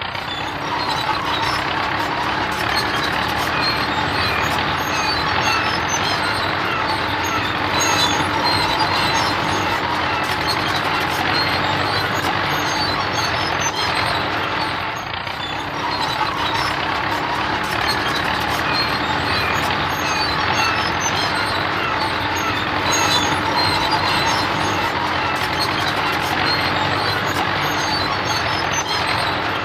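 Heavy truck running, a steady engine noise with a constant low hum that dips briefly about halfway through.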